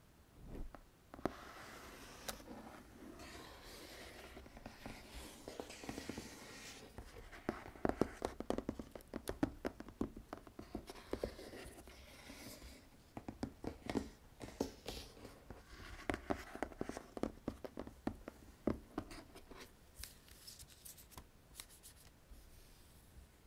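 Fingertips tapping and scratching on the printed cardboard box of Audio-Technica ATH-M20x headphones: quick clusters of light taps mixed with stretches of scratchy rubbing.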